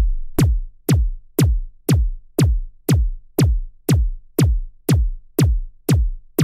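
Electronic background music stripped down to its beat: a steady drum-machine kick about twice a second, each hit sweeping down in pitch.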